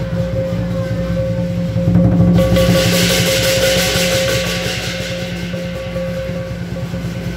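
Lion dance percussion: a Chinese drum beaten fast, with clashing cymbals joining about two and a half seconds in and easing off toward the end.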